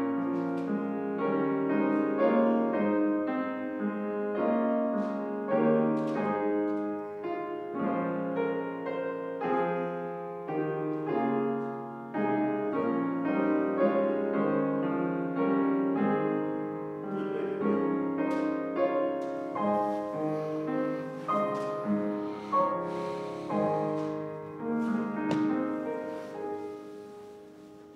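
Solo piano playing slow, quiet music, fading out near the end.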